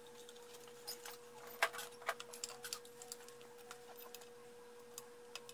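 Light, irregular metallic clicks and ticks of an Allen key turning the set screws in the joiners of an aluminium fence track, tightening the joint, over a faint steady hum.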